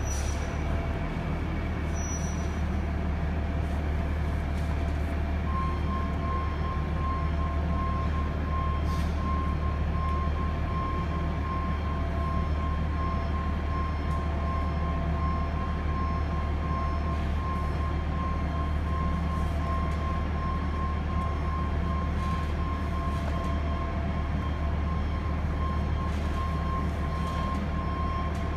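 Steady mechanical drone with a deep hum, like a large fan or machinery running, and a thin steady whine that comes in about five seconds in and holds.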